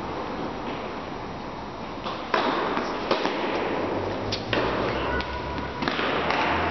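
A tennis rally: sharp pops of the ball off racket strings and court, several in quick succession starting a couple of seconds in, ringing in a large indoor hall.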